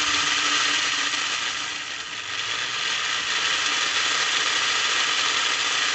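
Lionel plastic-case Scout locomotive motor (1001-M) and its gears running steadily with a dense buzzing whir that dips slightly about two seconds in. The owner takes the sound for dry gears and arcing inside the motor from dirty brushes or commutator face.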